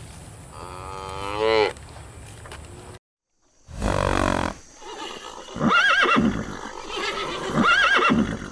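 Farm animal calls: one call rising in pitch about a second in, a sudden cut about three seconds in, then a loud call followed by two similar wavering calls about two seconds apart.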